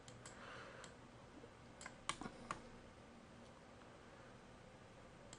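About six faint computer mouse clicks in the first half, then quiet room tone.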